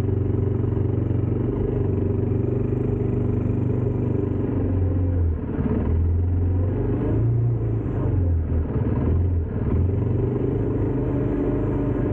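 ATV engine running steadily with a low drone; for a few seconds in the middle the engine note wavers and breaks up before settling again.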